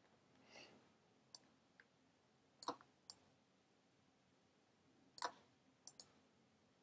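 Sharp clicks of a computer pointing device, about seven in all, some single and some in quick pairs, with near silence between them.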